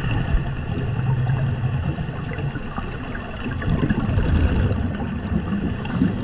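Underwater water noise: a gurgling, crackling rush of scuba divers' exhaled bubbles, swelling and easing in irregular surges.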